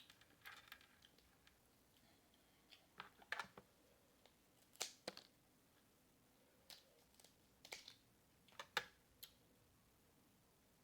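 Someone eating seafood: a string of short, sharp smacks and clicks of chewing and lip-smacking, irregularly spaced.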